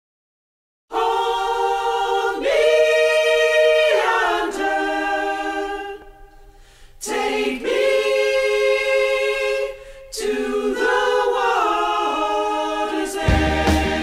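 Choral singing: voices holding long chords in harmony. It starts about a second in, dips briefly midway, and near the end is cut off by loud, distorted electric-guitar rock.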